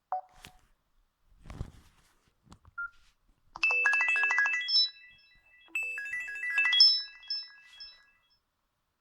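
Samsung mobile phone ringtone playing through the phone's speaker: a short electronic melody of bright beeping notes, heard twice and fading out. A few handling clicks and a soft thump come first.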